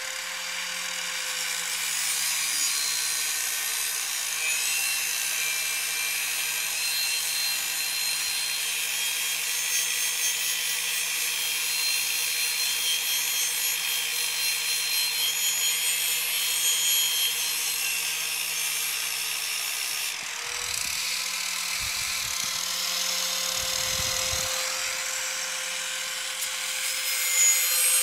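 Corded angle grinder running with a steady motor whine while its disc grinds the rusty steel underside of a lawn tractor mower deck, making a harsh scraping hiss. About 20 seconds in the grinding eases briefly, then carries on, louder near the end.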